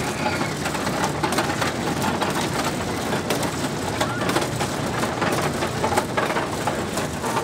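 Kiddie tractor carousel ride running: a steady noisy din with many small clicks and rattles throughout.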